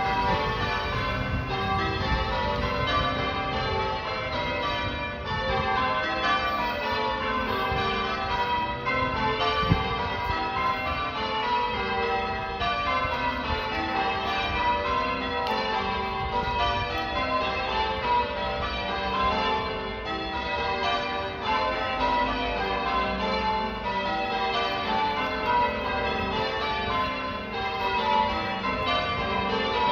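Church bells change ringing, the bells struck one after another in steady, continuous runs that step down in pitch again and again. A single brief knock stands out about ten seconds in.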